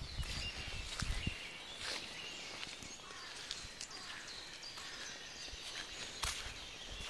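Footsteps on a dirt woodland path, with a low rumbling of movement noise on the microphone in the first second or so. Birds chirp faintly in the background.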